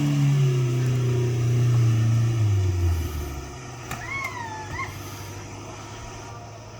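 Off-road 4x4's engine pulling, its revs falling away over about three seconds until it drops out to a low rumble. A short whistle-like call sounds about four seconds in.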